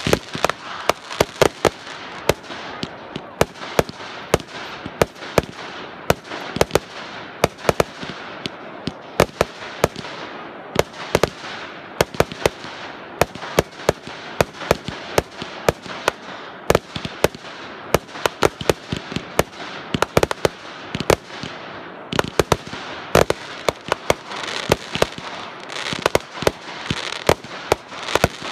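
Fireworks cake firing from the ground: a fast, uneven run of sharp bangs, several a second, over a steady crackle of burning stars.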